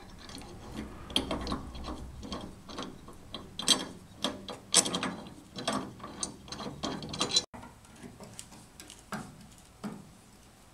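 Irregular metallic clicks and rattles as a car door striker plate and its steel bolts are handled and fitted by hand against the door pillar; after a cut about three-quarters through, it turns quieter with a couple of single clicks.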